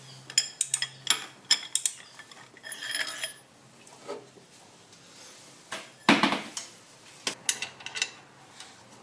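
Metal hand tools clinking and knocking on the alternator's top mounting bolts and bracket as they are undone. A quick run of sharp clicks comes first, then a brief scrape, a louder knock about six seconds in, and a few more clicks near the end.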